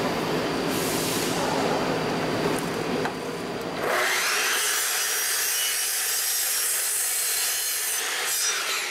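A steady low rumbling noise fills the first few seconds. About four seconds in, a sliding compound miter saw's motor spins up with a rising whine, and its blade cuts through a thick tree branch.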